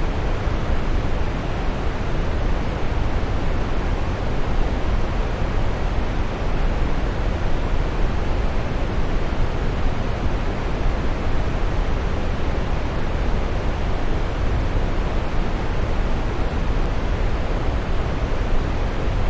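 Waterfall pouring steadily: an even, unbroken rush of water, heaviest in the low end, with no separate splashes standing out.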